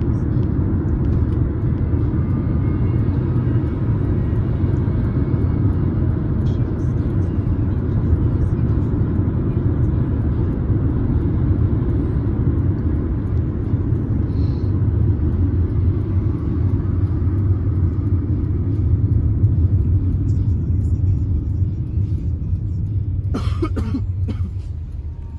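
Steady low rumble of road and engine noise inside a moving car's cabin. Near the end the rumble eases off and a few short, sharp noises are heard.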